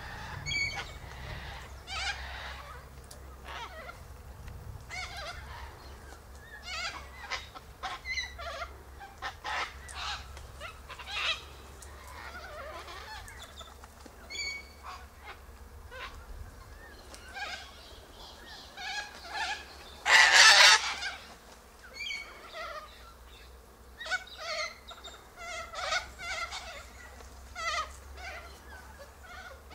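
A flock of sulphur-crested cockatoos giving scattered short squawks and chatter, with one long, loud, harsh screech about twenty seconds in.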